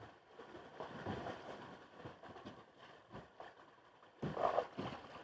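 Water splashing and sloshing around a kayak on a creek, in irregular swishes. The loudest splash comes about four and a half seconds in.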